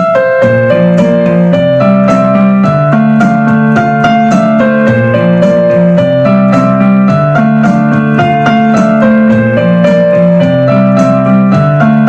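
Background music played on piano or electric piano: a repeating melody over a steady bass line, without singing.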